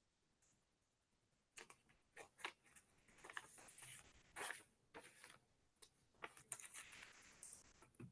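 Near silence, broken by faint, scattered short rustles and clicks.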